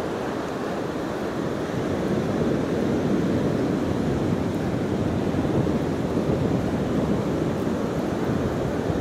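Ocean surf washing in on a flat sandy beach, a steady rush that grows a little louder about two seconds in, with wind buffeting the microphone.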